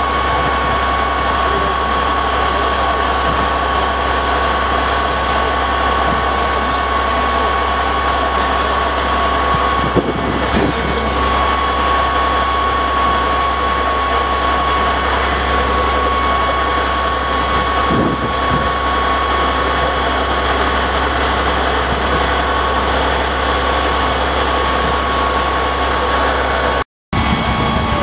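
Fire truck engine running steadily at idle, with a steady high whine over it.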